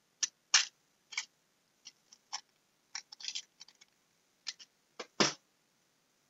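A small candy wrapper being handled and picked open in the fingers, in short, irregular crinkles and clicks, with a louder rustle about five seconds in.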